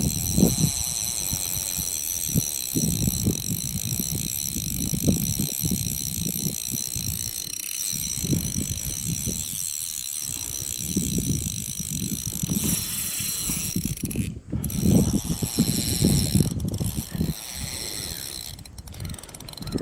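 Fishing reel ratcheting and whirring as a large carp is fought on the line.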